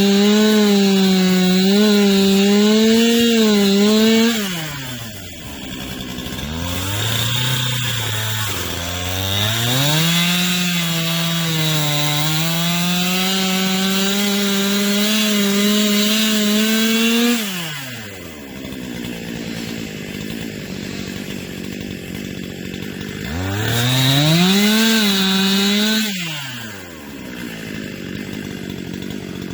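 Two-stroke chainsaw cutting wood at full throttle, its engine note wavering under load. It drops to idle about four seconds in, revs back up and cuts for several more seconds, falls to idle again, then revs up once briefly near the end before settling back to idle.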